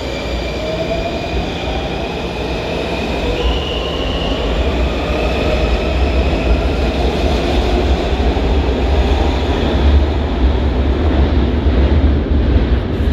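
Washington Metro train pulling out of an underground station and picking up speed. The motor whine rises steadily in pitch over several seconds, and the low rumble of wheels on rail grows louder.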